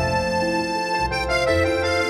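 Background music: sustained keyboard chords over a low bass, the bass note changing about a second in.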